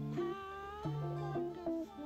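Background music: an instrumental tune of held, pitched notes that change every half second or so.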